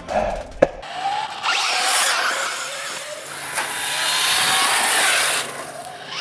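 Radio-controlled short-course truck driving on pavement, its motor whining and rising and falling in pitch as it speeds up and slows, with a hiss over it; it drops away briefly near the end.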